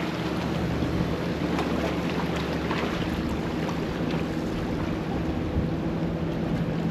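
Steady wind and surf noise with a low, even engine hum running under it.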